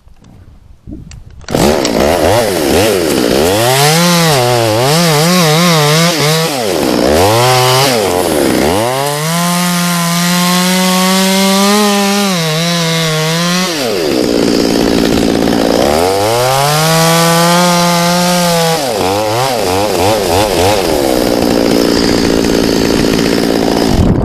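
Two-stroke chainsaw comes in loud about a second and a half in and runs at high revs, its pitch sagging and recovering as the chain bites into wood, with the throttle let off and opened again a few times while cutting a limb.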